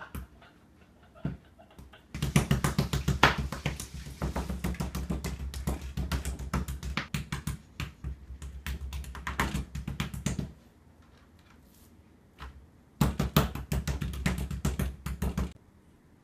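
Rapid tapping of a kitchen knife against a plastic cutting board as it chops into raw steak, several strikes a second, with a dull thud from the table. It runs for about eight seconds, stops, then comes back briefly near the end.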